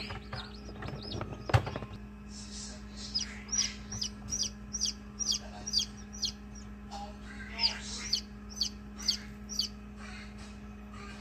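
Newly hatched Wyandotte chick peeping: a string of short, high, falling peeps, about two to three a second, pausing briefly midway. A sharp click sounds about a second and a half in, over a steady low hum.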